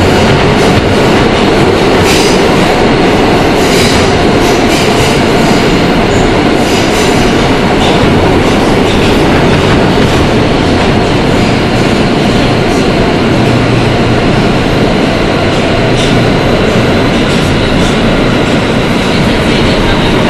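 Kawasaki R160B subway car heard from inside while under way: a loud, steady rumble of wheels on rail with occasional faint clicks and a thin high whine running through it.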